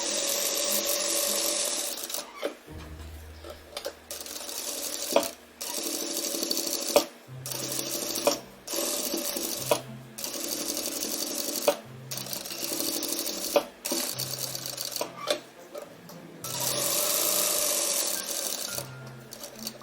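Sewing machine stitching in a series of short runs, a second or two each with brief stops between, over background music.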